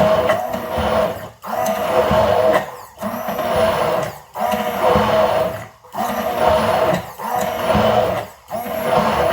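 Small electric blender or chopper run in short pulses, about seven bursts of roughly a second and a half each with brief pauses between, grinding ingredients for a balado chili paste.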